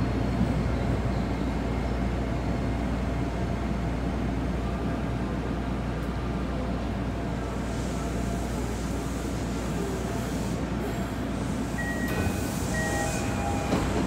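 Toei Oedo Line 12-000 series subway car's interior running noise, a steady low rumble, as the train slows into the station and stops. About twelve seconds in, the door-opening chime sounds in short tones as the doors open.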